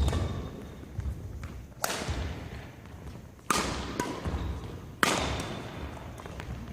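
Badminton rackets striking the shuttlecock in a doubles rally, four sharp hits about a second and a half apart, each ringing on in the hall's echo, with players' feet thudding on the court floor between them.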